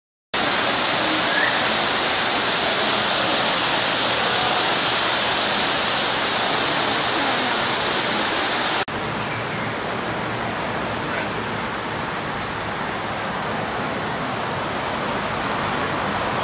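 Loud steady rushing noise, like falling water. After a sudden cut about nine seconds in, it gives way to a duller, lower steady rush of street traffic.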